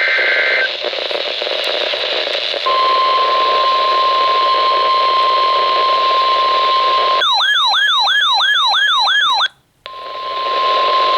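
NOAA Weather Radio emergency alert over steady radio hiss: the SAME header's data tones end right at the start, then the steady 1050 Hz warning alarm tone sounds for about four seconds. A fast warbling electronic siren, about three to four sweeps a second, takes over for about two seconds and cuts off into a brief silence, then the 1050 Hz tone comes back near the end.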